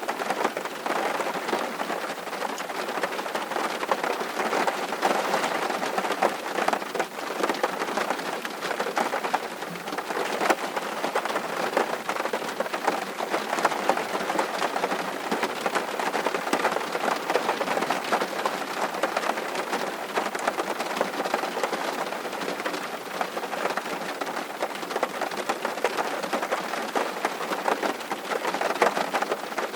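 Steady rain, a dense even hiss with many individual drops ticking through it.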